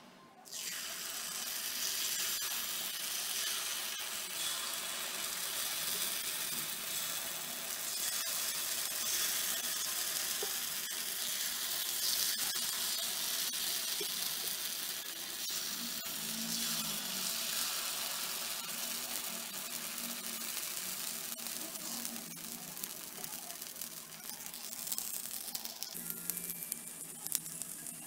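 Paniyaram batter sizzling in hot oil in the cups of a cast-iron paniyaram pan: a steady hiss that starts suddenly about half a second in, with scattered crackles near the end.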